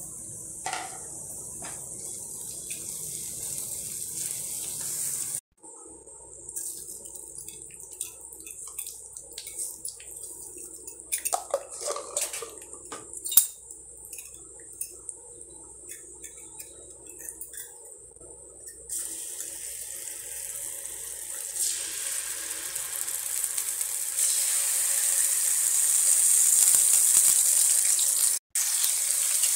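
Hot oil sizzling steadily in a frying pan as cumin seeds temper for a tadka, with a few sharp clicks of a utensil against the pan in the middle. The sizzle grows louder and fuller in the last third, as chilli powder and paste go into the hot oil.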